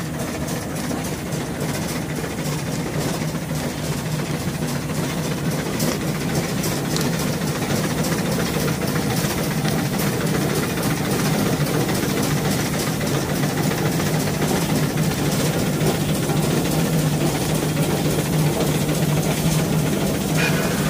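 Twin-cylinder Rumely steam traction engine running as it pulls a plow: a steady, low mechanical drone that grows louder over the first several seconds. A brief higher tone comes in near the end.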